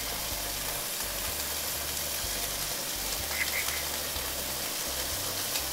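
Chunks of block bacon sizzling in olive oil in a frying pan, a steady hiss.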